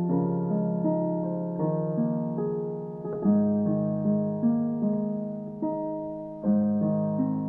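Background piano music: soft, slow notes struck one after another, each fading before the next.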